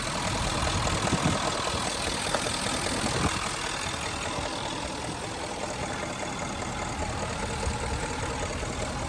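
2013 Range Rover engine idling steadily, with a light extra noise in its running that the owner suspects is the timing chain. A few sharper ticks come in the first few seconds.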